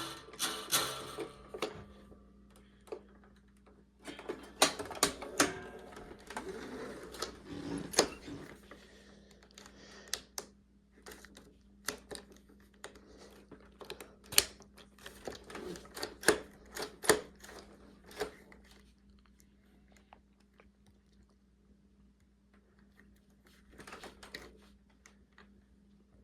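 Hand-handling noises from a Hoover PowerMax vacuum cleaner that is switched off: scattered clicks, taps and rustles of plastic parts, busiest in the first two-thirds, with a few more near the end. A faint steady low hum sits underneath.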